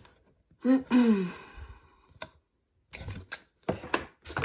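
A woman's short wordless vocal sound about a second in, two quick pitched notes with the second falling, like a sigh or hum. Then a sharp click and a run of light clicks and rustling from a cardboard box and its contents being handled.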